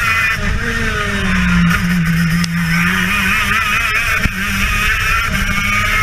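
TM KZ10B two-stroke kart engine running hard on track. The revs sag through a corner, then climb steadily as the kart accelerates onto the straight.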